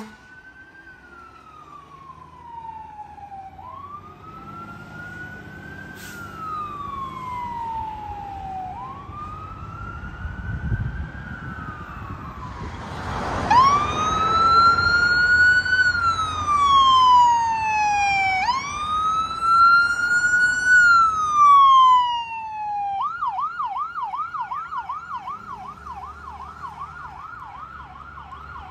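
Electronic emergency-vehicle siren on a slow wail, rising and falling about every five seconds, growing much louder about halfway through as the vehicle approaches and passes with engine and road noise. Near the end it switches to a fast yelp.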